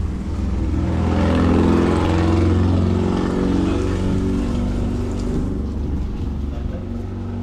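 An engine running steadily, its pitch and loudness rising and falling back about one to three seconds in.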